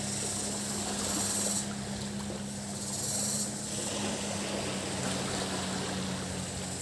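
Tropical beach ambience: surf washing over a steady low engine hum, with cicadas buzzing high above that swell louder twice, about a second in and again about three seconds in.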